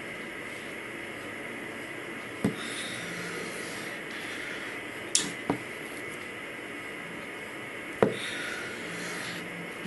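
Chef's knife slicing down through a set pumpkin jelly dessert and knocking on a wooden cutting board: four sharp knocks, the loudest about eight seconds in. A faint steady high hum lies underneath.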